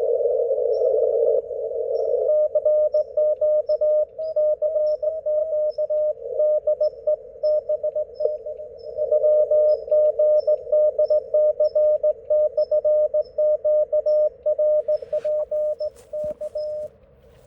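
Morse code (CW) on a radio receiver fed by a magnetic loop antenna: a single steady tone keyed on and off in dots and dashes over filtered receiver hiss. The keying starts about two seconds in and stops shortly before the end, after a few clicks.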